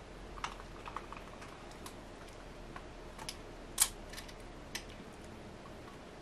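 A cat licking its paw while grooming: irregular clicks and smacks of tongue and mouth, the loudest a little before four seconds in.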